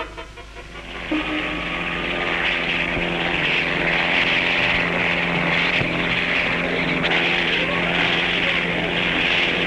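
Fairey Ultralight tip-jet helicopter running in flight, starting about a second in. It gives a steady jet roar with a hiss on top and a low steady hum beneath.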